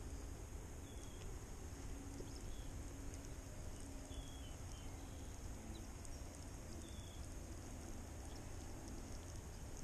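Quiet outdoor ambience by still water: a low, steady wind rumble on the microphone, with a few faint, short, slightly falling high chirps from birds scattered through it.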